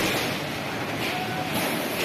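Concrete building collapsing into a flooding river: a continuous roar of falling masonry and rubble mixed with rushing floodwater. A person's drawn-out call rises over it about a second in.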